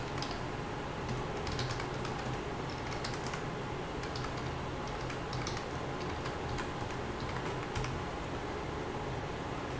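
Typing on a computer keyboard: irregular key clicks over a steady low hum.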